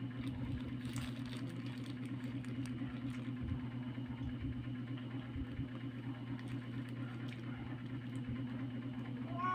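A steady low mechanical hum, with soft clicks and rustles of chewing and of a burger handled in its paper wrapper.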